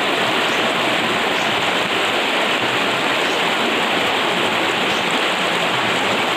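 River water rushing over rocks in white-water rapids: a steady, unbroken rush.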